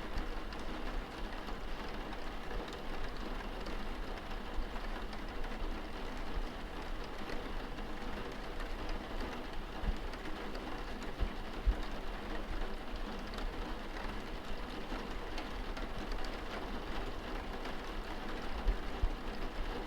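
Steady pattering and splashing of water, with a few brief louder knocks.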